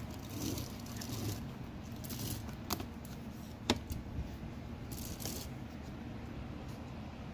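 Handling noises from gloved hands working at a Sanitaire upright vacuum's spring-loaded handle socket: rustling of glove and cloth with light rattling of the metal parts, and two sharp clicks about a second apart near the middle.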